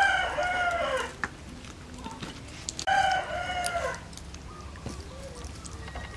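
A rooster crowing twice: one crow already under way and ending about a second in, a second one about three seconds in, each about a second long and dropping in pitch at the end.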